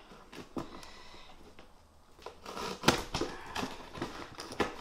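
Box cutter slicing through packing tape on a cardboard box: an irregular run of sharp clicks and scratchy scrapes of the blade on tape and cardboard, the loudest about three seconds in.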